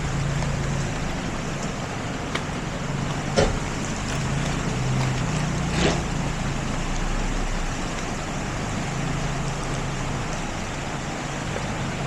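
Steady rush of water from a small waterfall sliding over rocks, with a low steady hum beneath it. Two brief knocks, about three and a half and six seconds in.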